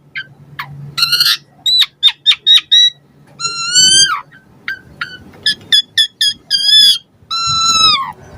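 Pied starling (jalak suren) singing a busy, varied song of short sharp chips and clear whistled notes, with two longer whistles that slide down in pitch, one about a third of the way in and one near the end.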